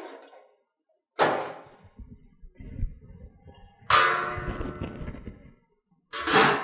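Stainless-steel ultrasonic cleaner being loaded: the wire parts basket clanks against the steel tank as it goes in, with a ringing metal clang about four seconds in, and the steel lid clangs down onto the tank near the end.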